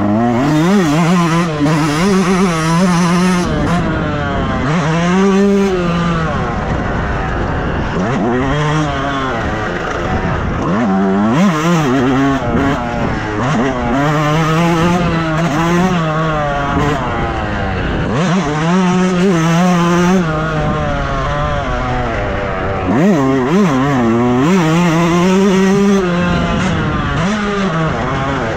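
Motocross bike engine revving hard and easing off again and again, its pitch climbing and dropping every couple of seconds.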